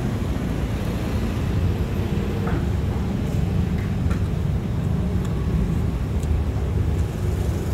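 Steady low rumble of passing street traffic, with a few faint light clicks.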